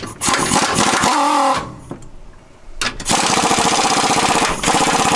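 Pneumatic air tool hammering rapidly against the steel frame rail in three runs: about a second and a half, a pause, then two longer runs back to back. The mechanic is working the old engine perch loose from the frame.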